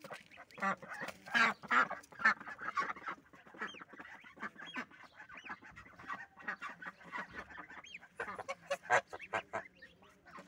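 Domestic goslings peeping with short, high, arching calls as they peck at fresh greens, with a goose's lower calls among them. Leaves rustle and tick as they are pulled.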